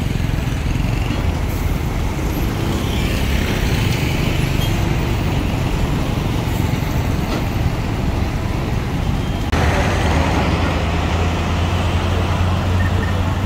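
Heavy vehicle engines running amid road traffic noise, a steady rumble with a deep engine hum. A little under ten seconds in the sound changes abruptly: the hiss above fades and the deep engine hum grows louder.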